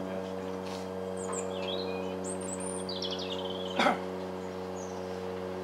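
Small birds chirping over a steady low hum, with one short, sharp, louder sound about four seconds in.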